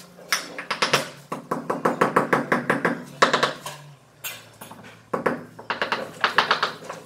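Hand tool scraping on ceramic floor tile in quick even strokes, about six a second, in two runs with a pause about four seconds in.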